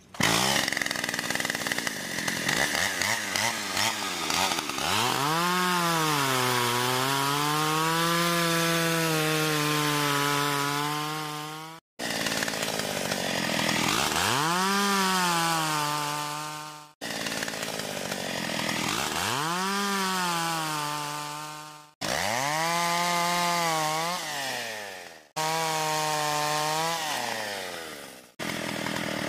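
Gas chainsaw cutting through a fallen ash log: the engine revs high, drops in pitch as the chain bites into the wood, then holds a steady lower pitch through the cut. This happens in about six stretches, each stopping abruptly.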